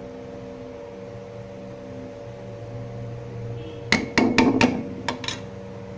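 A metal spoon knocking against the rim of a steel cooking pot: about six sharp, ringing clinks in quick succession in the last two seconds, over a steady hum.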